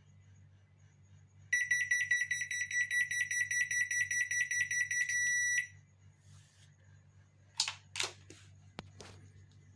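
An automatic washing machine's electronic control-panel buzzer sounding a rapid, pulsing high beep for about four seconds, then a brief steady tone that cuts off sharply: the controller has power again after the repair. A few sharp clicks follow near the end.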